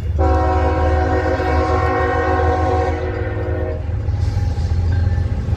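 CSX freight train's locomotive horn sounding one long blast, a chord of several tones that cuts off about three and a half seconds in. Under it runs the steady low rumble of the approaching diesel locomotives.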